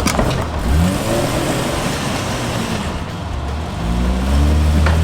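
Rock crawler's engine revving up and falling back several times as it works over rocks, with a sharp knock near the start and another near the end.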